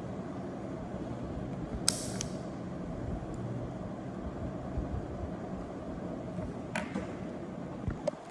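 Steady background hum of a small room, with one sharp click about two seconds in and a few fainter clicks near the end.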